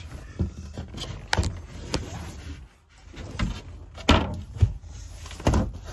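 A series of scattered knocks and clunks, about half a dozen, from the cabinet doors and storage lids of a pop-up camper trailer being opened, closed and handled.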